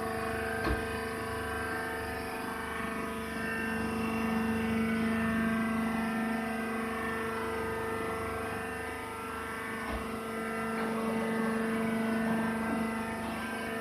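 Hydraulic wood-shaving baling press running: a steady mechanical drone from its motor and hydraulic pump, with a light knock about a second in and another about ten seconds in.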